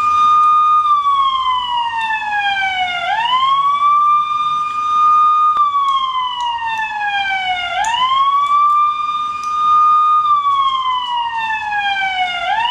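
Siren sound effect: a steady high tone that glides slowly down, then sweeps quickly back up, three times, repeating about every four and a half seconds.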